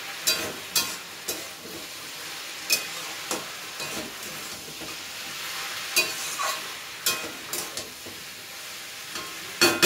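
Pumpkin pieces frying in a steel wok with onion and spices, sizzling steadily while a metal spatula stirs them, with sharp scrapes and clinks of the spatula against the pan now and then and a cluster of louder ones near the end.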